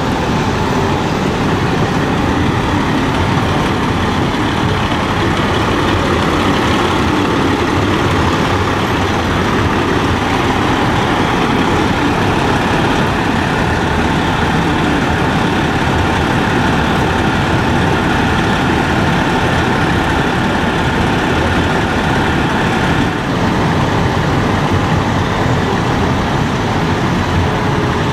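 Diesel engines of parked fire trucks running steadily at close range, a loud, even rumble with no siren or horn.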